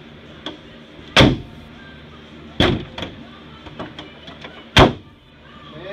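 Three heavy slams, about a second and a half to two seconds apart, with lighter clicks and knocks between them.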